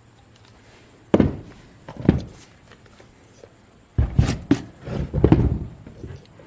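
A few heavy knocks and thuds as the plastic lawn sweeper wheel and its bracket are handled and worked on: one about a second in, another a second later, then a cluster of several from about four seconds in.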